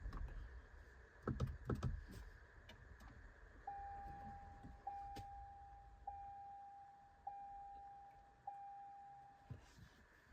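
Vehicle cabin warning chime sounding five times at one steady pitch, a new ding about every 1.2 seconds, after two soft knocks about a second and a half in.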